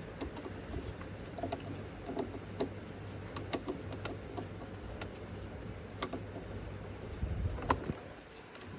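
Irregular small clicks and taps of parts being handled and fitted on a domestic sewing machine, with the sharpest clicks about three and a half, six and seven and a half seconds in; no stitching is heard.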